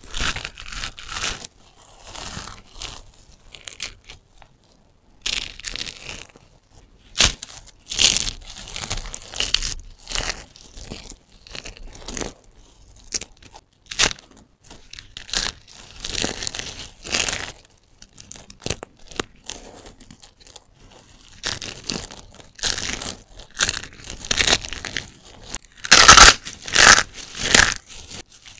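Dry soap bars being crushed and crumbled by hand, crunching and crackling in irregular bursts as the soap breaks into flakes. There is a brief lull about four seconds in, and the loudest crunches come near the end.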